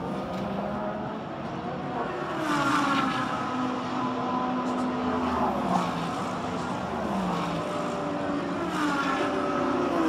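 Endurance race cars passing one after another at speed, each engine note dropping in pitch as it goes by.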